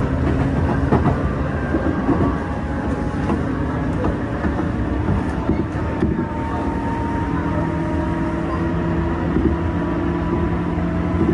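A JR West 201 series electric train running at speed, heard from inside the carriage: a steady rumble of wheels on the rails with a low hum.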